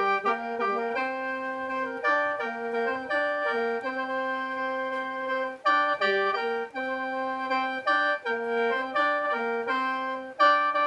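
Khaen, the Lao bamboo free-reed mouth organ, played solo in lai sao mode. Several reeds sound at once: steady drone notes under a melody that moves in short steps, with brief breaks for breath about six seconds in and near the end.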